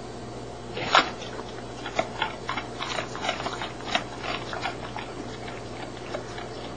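A dog making a run of short, irregular snapping and clicking sounds, beginning about a second in with the loudest one.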